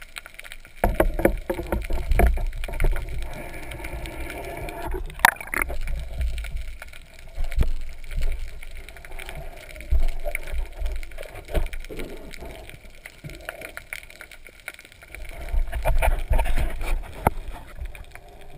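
Sea water sloshing and gurgling around an underwater camera housing just below the surface, with uneven low rumbles and scattered knocks and clicks from the housing being moved and handled.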